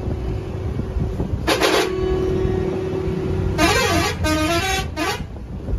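Vehicle horn sounding over the low rumble of a moving bus: a steady held tone, a short sharp blast about a second and a half in, then a warbling tune that rises and falls in pitch for about a second and a half near the end, in the style of a musical pressure horn.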